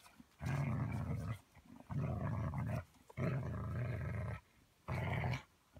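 A dog growling in four long, rough stretches with short pauses between, a play growl while tugging on a toy held by the handler.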